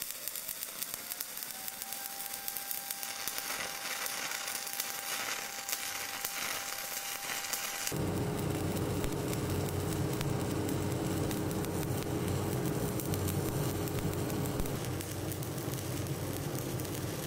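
Stick (shielded metal arc) welding arc burning at a good arc length: a steady crackling sizzle with a faint steady tone under it. About halfway through it cuts abruptly to another weld, where the crackle is heavier and lower.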